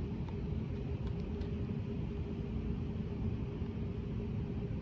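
Steady low rumble with a faint steady hum running through it.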